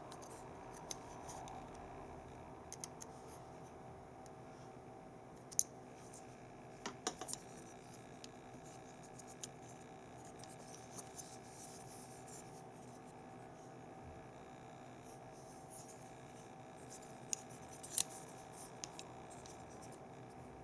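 Faint scattered clicks and scratches of a gaming mouse's small plastic parts being handled and worked on, over a steady faint hum. The sharpest clicks come about five and a half seconds in and near the end.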